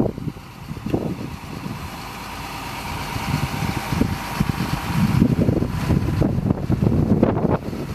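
Diesel engine of a HIAB crane lorry idling, with wind buffeting the microphone in irregular low gusts, strongest in the second half.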